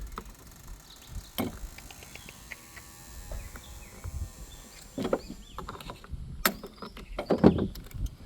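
Chainsaw parts handled during a teardown: scattered clicks and knocks of plastic and metal pieces, with a few sharper knocks in the second half.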